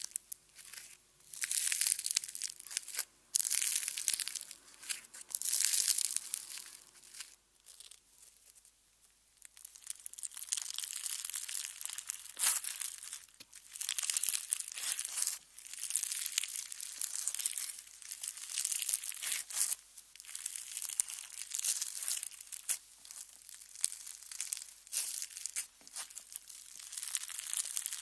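Slime being squeezed and stretched by hand: sticky crackling and popping in runs of a second or more, with a short lull about eight seconds in.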